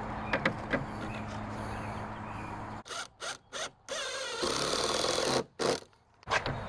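Cordless drill driving screws through half-inch cement board into the wall framing, in short runs in the second half. Before that, a steady low hum with a few light clicks.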